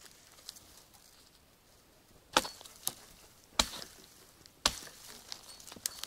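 Three sharp chopping blows on wood, about a second apart, with a few lighter knocks between them.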